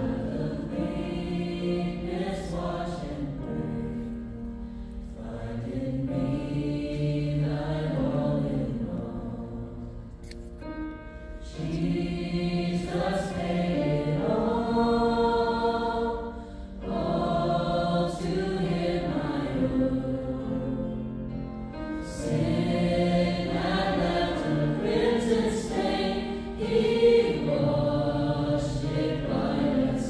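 A choir singing a worship song in long, held phrases, pausing briefly between lines.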